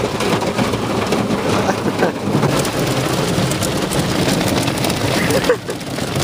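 Automatic car wash working over a car, heard from inside the cabin: water spraying and drumming on the body and glass, with cloth strips sweeping over the windows. A steady, dense rain-like wash of noise.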